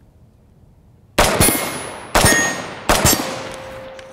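Three rifle shots from a Smith & Wesson Performance Center AR-15 firing 55-grain .223 ammunition, each followed by a long fading echo. The second shot comes about a second after the first, and the third follows more quickly.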